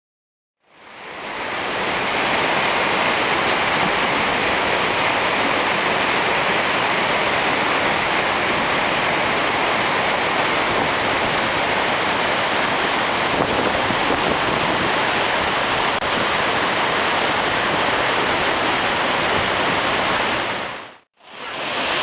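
Steady rushing of fast, swollen river water over rocky rapids, fading in about a second in. It drops out for a moment near the end, then the rush of the waterfall comes back in.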